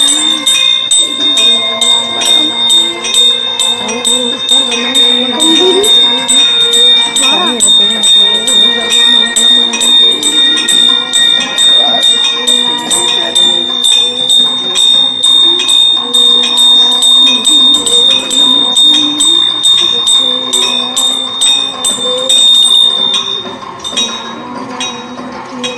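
Temple bell struck over and over in a rapid, steady rhythm, its high ring running on between strokes, until it stops shortly before the end; voices murmur underneath.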